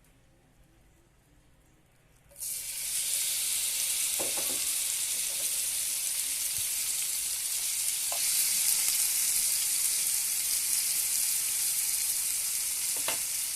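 Seasoned scallops sizzling in hot olive oil in a pan. The sizzle starts suddenly about two seconds in and then holds steady, with a few faint light clicks.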